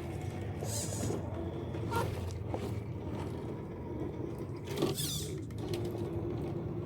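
Radio-controlled scale truck driving, its electric motor and gears giving a steady hum with a few short clicks and scrapes.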